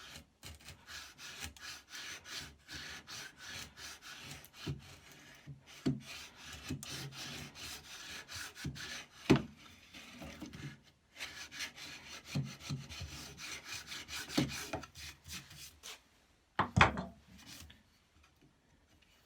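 A hand tool rubbing and scraping on wood in many short repeated strokes, with a louder knock about nine seconds in and another near the end.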